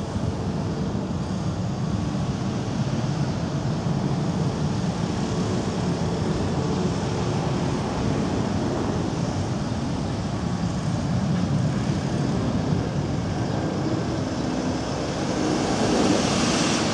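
Steady street traffic noise. Near the end a van passes close by and its engine and tyre noise swells.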